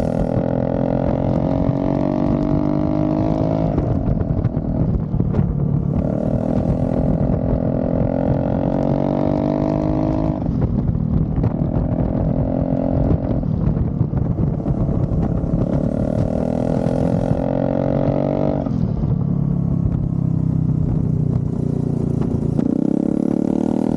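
Turbocharged 400cc Yamaha single on a standing scooter running hard under load. Its pitch climbs slowly and drops sharply four times as the throttle is eased, and a high turbo whistle comes and goes.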